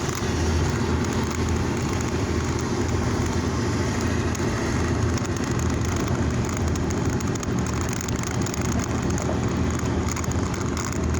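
Steady low rumble with an even hiss over it, unchanging throughout, with no distinct clicks or knocks.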